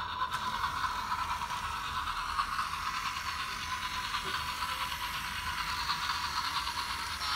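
Battery-powered Imaginarium Express toy locomotive running along plastic track, its small motor and plastic gears making a steady, fast, even whirring rattle.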